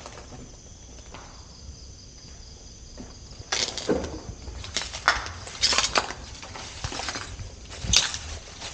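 Footsteps crunching through dry undergrowth and brush, irregular and uneven, beginning about three and a half seconds in.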